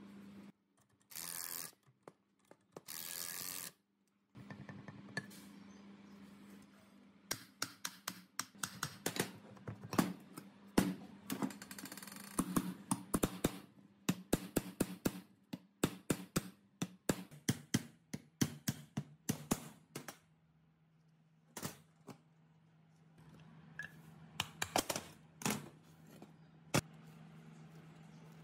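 Steel hammer tapping the rotor shaft of a concrete plate vibrator's electric motor to drive it out of the cast end plate: a long run of quick, sharp metal knocks, several a second and uneven, that thins out to a few scattered strikes near the end. Two short scraping rushes come first, and a low steady hum sits underneath.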